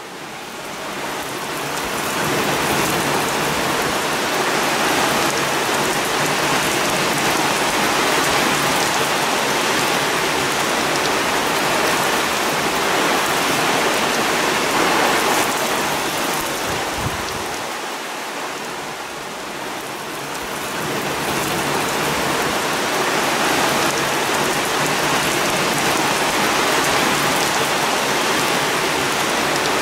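Heavy rain pouring down steadily in a violent thunderstorm: a dense, even hiss. It fades in at the start and eases briefly about two-thirds of the way through.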